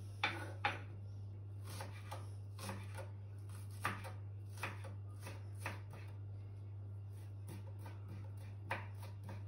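Kitchen knife chopping leek and spring onion on a wooden cutting board: irregular sharp knocks of the blade on the board, a little faster at first, over a steady low hum.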